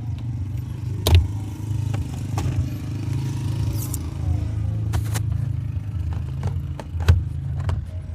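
Motor vehicle engine running steadily with a low rumble, with several sharp clicks and knocks over it, the loudest about a second in and again near the end.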